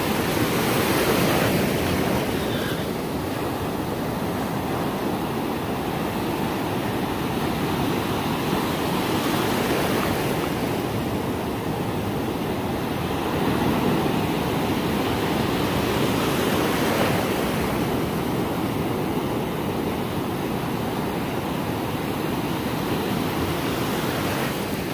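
Ocean surf: waves breaking and washing through shallow water in a steady rush that swells and eases every few seconds.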